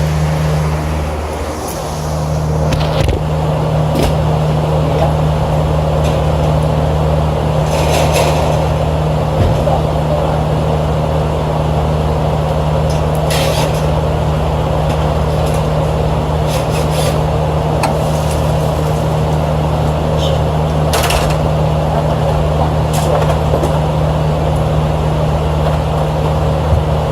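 A rooftop HVAC unit running steadily: a constant low motor hum under the rush of its fans, with a few light clicks and knocks.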